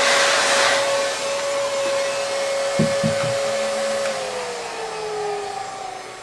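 Heat gun blowing hot air on heat-shrink tubing: a steady fan whine over a rush of air, the rush loudest in the first second. Toward the end the whine falls in pitch as the fan slows.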